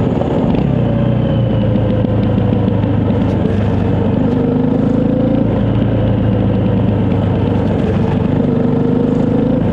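Honda CRF250 Rally's single-cylinder four-stroke engine running under way at a steady pace, its pitch easing up and down slightly, with road and wind noise.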